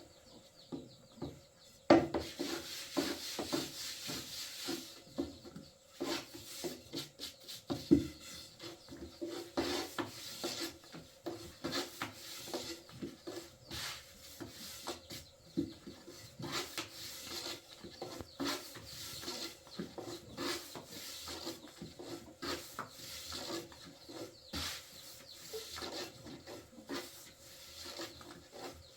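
Irregular rubbing and scraping with frequent light knocks, as of something worked against wood.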